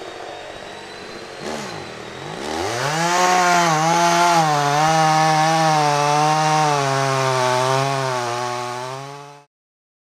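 Two-stroke gas chainsaw running at low speed, then revved up sharply about two and a half seconds in and held at high speed with a wavering pitch. It cuts off suddenly near the end.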